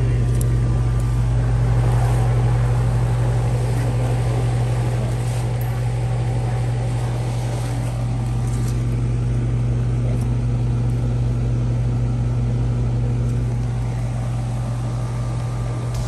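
1985 Carrier Round One central air conditioner's outdoor condensing unit running with a steady electrical hum. The system is completely flat on refrigerant charge.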